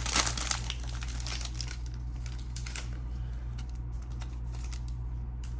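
Foil trading-card pack wrapper being torn open and crinkled by hand. The crinkling is densest in the first half second, then thins to lighter, scattered crackles and clicks as the cards are pulled out.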